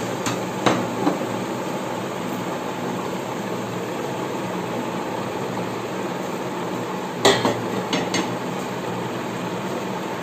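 Whole spices (bay leaf, cinnamon, cloves) frying in hot oil in an electric rice cooker pot: a steady sizzle with a few sharp clicks, clustered in the first second and again around seven to eight seconds in.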